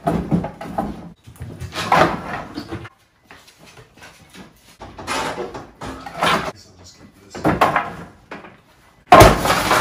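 Repeated clattering bangs and knocks of junk being thrown and loaded into a pickup truck's bed, ending about nine seconds in with a much louder crash: the truck's rear window glass breaking.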